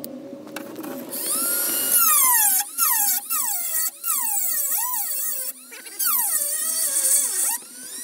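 Dremel rotary tool grinding away sheet metal, a high whine that sags in pitch each time it bites into the metal and rises again as it eases off. It starts about a second in and runs in short passes, cutting out briefly a few times.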